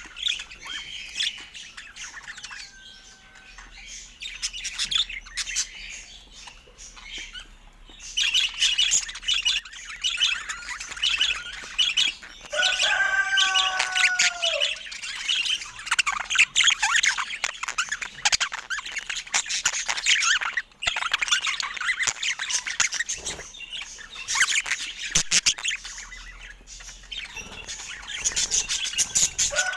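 Budgerigar chatter: a dense run of rapid high chirps and twitters, louder from about eight seconds in, with a longer squawk that falls in pitch around halfway and again near the end.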